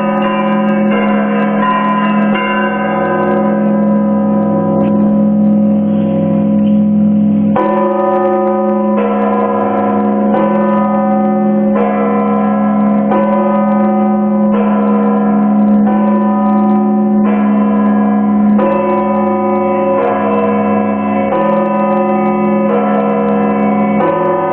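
Russian Orthodox monastery bells ringing: several bells of different pitch are struck in a repeating pattern over the sustained hum of a low bell. The higher bells thin out for a few seconds, then come back with a fresh stroke about every second and a half.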